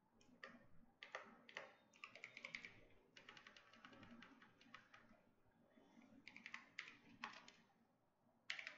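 Faint typing on a computer keyboard: quick runs of keystrokes, then a few separate key presses with short pauses between them.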